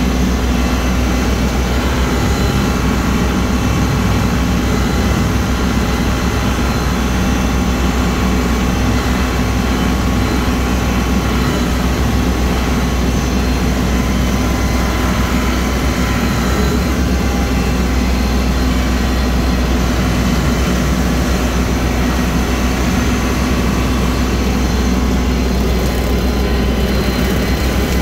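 Kubota L3302 tractor's three-cylinder diesel engine running steadily while driving a rotary cutter through tall grass and weeds, heard from the operator's seat.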